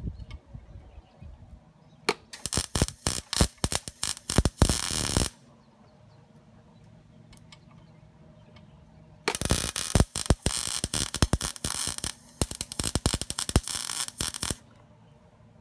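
Wire-feed arc welder crackling as it lays a weld across the cracked steel exhaust pipe of a scooter muffler. Two runs of arc crackle with short breaks: one starting about two seconds in and lasting about three seconds, and a longer one from about nine seconds in until near the end.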